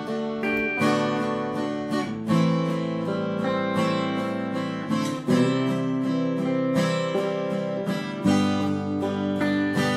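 Background music: acoustic guitar played with strummed and plucked chords in a steady rhythm.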